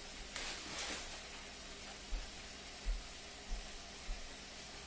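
Faint, steady sizzle of a frozen block of ground beef thawing in hot oil in a nonstick skillet, with a brief louder hiss about half a second in and a few soft low thumps later on.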